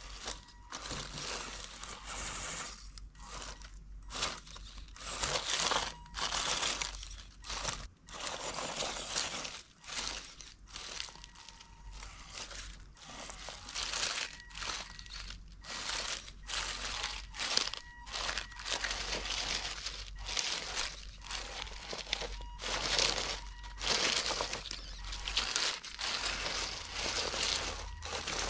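Dry leaf litter and loose stones crunching and crackling in irregular bursts as an RC crawler truck picks its way over a rocky forest floor. A faint thin whine from the truck's electric drivetrain comes and goes underneath.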